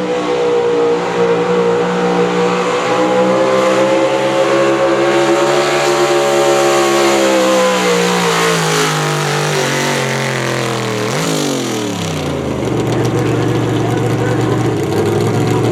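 Pulling vehicle's engine running hard at high revs under load, its pitch sagging over several seconds as it bogs down, then a quick blip of throttle about eleven seconds in before it drops to a lower, steady idle.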